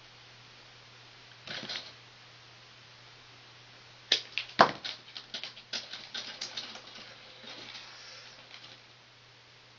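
A brief rustle, then a quick, irregular run of sharp clicks and ticks from hands working thermostat wires and their connectors on an air handler control board. A steady low hum runs underneath.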